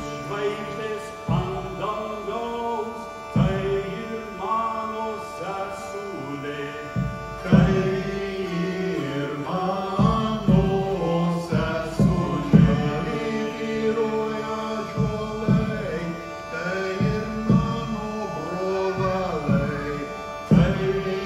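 Men singing a Lithuanian folk song over a steady held drone, with strikes on a large double-headed folk drum, spaced out and louder from about seven seconds in.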